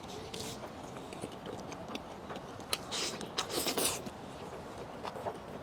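A person eating: small wet mouth clicks and chewing, with a few short smacking or slurping bursts around the middle.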